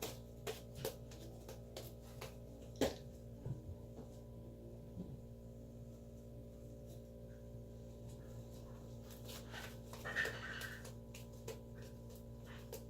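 Homemade slime being pulled and squeezed by hand, with many small sticky clicks and snaps, one sharper snap about three seconds in, over a steady low hum.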